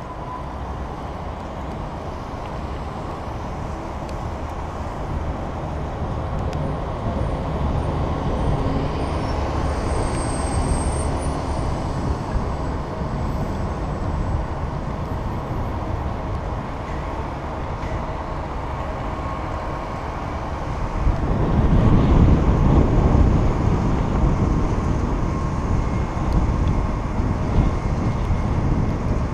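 Steady wind and road noise on a bicycle-mounted camera's microphone while riding on wet city pavement, with surrounding street traffic; the rumble swells louder for a few seconds about three-quarters of the way through.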